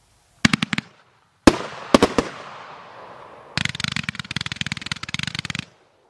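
A 500-gram "United States" fireworks repeater cake firing. A quick cluster of sharp pops is followed by a louder bang with a hissing tail and a few more reports. Then comes about two seconds of dense, rapid crackling that cuts off suddenly.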